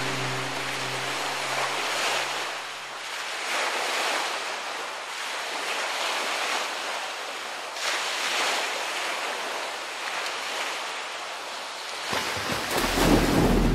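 Sea surf washing over and over in swells every couple of seconds, while a piece of music fades out in the first few seconds. About twelve seconds in, a splash into the water turns into a low, muffled underwater rumble.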